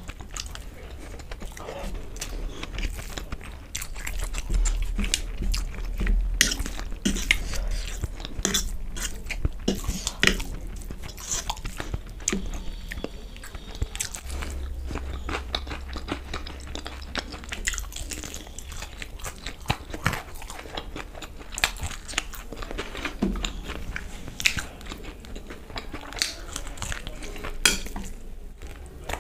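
Close-miked eating sounds: chewing fried masala Maggi noodles, then biting into and chewing a fried chicken lollipop, with repeated crunches, wet chewing and sharp mouth clicks.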